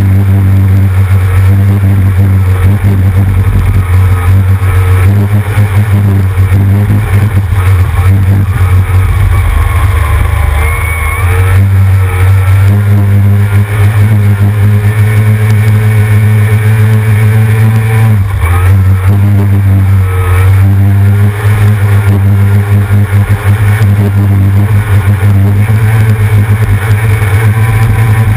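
A C Stock racing hydroplane's outboard motor running hard and steady at speed, heard close up from the deck. Its pitch dips briefly about a third of the way in and again a little past halfway, then it picks back up.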